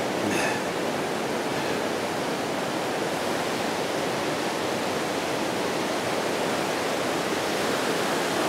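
Glacial meltwater river rushing fast, a steady, even rush of water.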